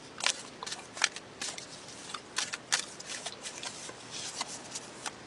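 Tarot cards being shuffled by hand: an irregular run of short slaps and flicks as the cards are mixed.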